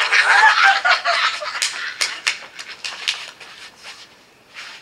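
Audience laughing and whooping, loudest in the first second or so, then breaking up into scattered laughs and a few claps that die away.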